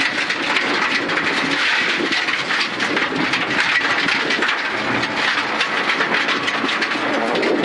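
Suzuki Ignis Sport rally car heard from inside the cabin at speed on a gravel road: the 1.5-litre four-cylinder engine running under a steady rush of tyre and gravel noise, with a constant patter of stones clicking against the underbody.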